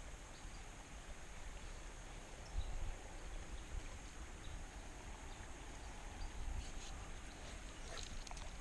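Quiet outdoor ambience with low wind rumble on the microphone, bumping hardest a little over two seconds in, under a steady high hiss. A few light ticks are scattered through it, with a small cluster near the end.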